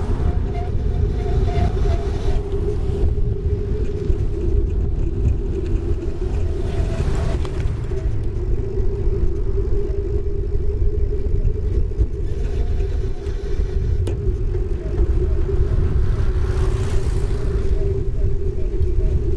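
Bicycle rolling along an asphalt path at speed: a steady hum from the tyre on the tarmac over a constant low rumble of wind buffeting the microphone.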